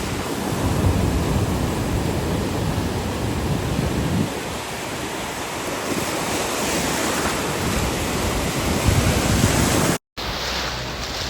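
Ocean surf washing ashore, with wind buffeting the microphone in low gusts. The sound cuts out briefly near the end and comes back quieter.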